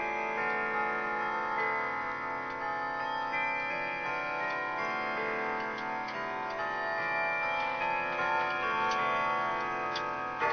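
Grandfather clock's triple-chime movement playing a chime melody: pitched notes struck one after another, each ringing on and overlapping the next.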